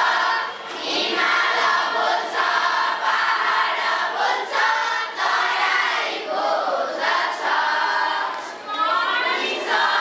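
A class of schoolchildren singing a song together in chorus, phrase after phrase with short breaks between.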